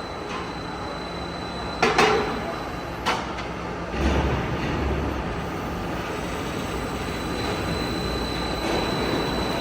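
Roll forming machine running with a steady mechanical noise and a thin high whine, with sharp metallic clanks about two seconds in and again about three seconds in; a deeper hum joins about four seconds in.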